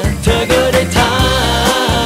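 Thai pop song playing: a steady drum beat over bass, with a melody line held with vibrato from about halfway through.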